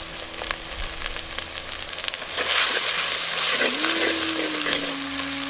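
Small onions, ginger-garlic paste and chillies sizzling in sesame oil in a clay pot, stirred with a wooden spatula; the sizzle grows louder about two and a half seconds in.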